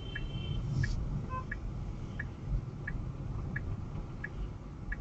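Low road and engine rumble inside a car's cabin, with the turn signal ticking evenly, about once every 0.7 s, as the car makes its turn.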